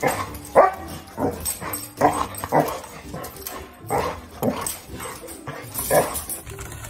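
Dogs barking during rough play: a run of about ten short barks at irregular intervals, roughly one every half second, with a couple of short pauses.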